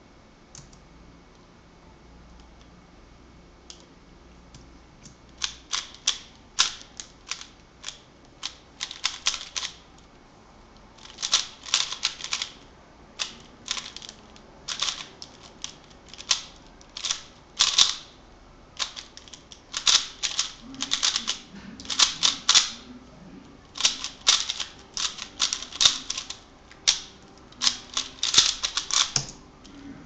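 Plastic 3x3 speed cube being solved, its layers clacking in rapid clusters of turns with short pauses between them. The clicking starts about five seconds in and stops just before the end.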